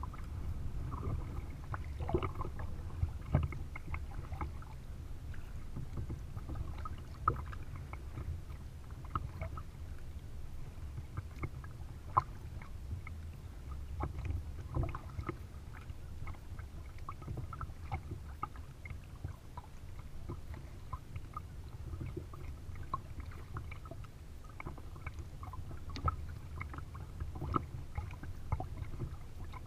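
Kayak paddle blades dipping and splashing on alternate sides, with water lapping against the hull over a steady low rumble.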